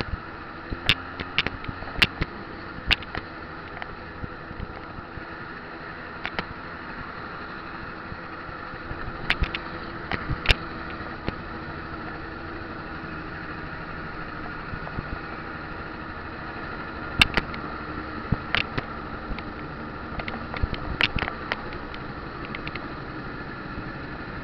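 A small road vehicle running steadily while driving slowly along a street, heard from a camera mounted on it. Scattered sharp clicks and knocks, likely the mount rattling over bumps, are loudest about 17 seconds in.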